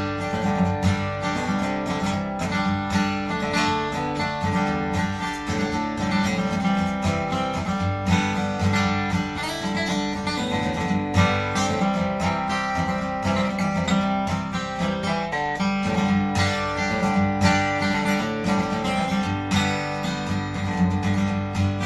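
Seagull SWS Mahogany acoustic guitar, an all-solid mahogany steel-string, being played: strummed chords and picked notes, steady throughout.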